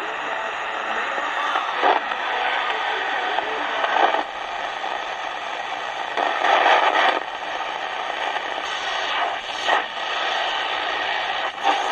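Tecsun R-909 analogue radio's speaker giving steady medium-wave static and hiss as the dial is tuned across the band, with several brief louder bursts of noise along the way.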